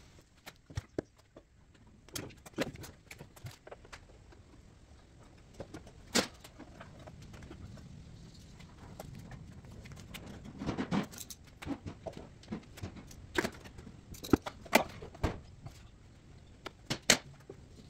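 Scattered small clicks and knocks of handling noise, with a denser cluster about eleven seconds in and a few sharper clicks near the end.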